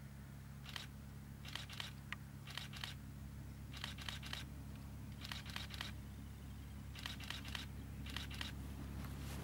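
Distant ALn 772 diesel railcar running along the line, a steady low hum that slowly grows louder, with short groups of faint clicks every second or so.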